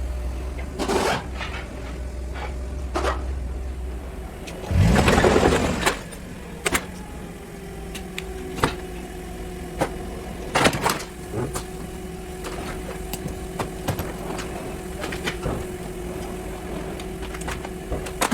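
Workshop sounds of car disassembly: scattered knocks and clicks, with a loud rushing burst of noise about five seconds in, over a steady hum.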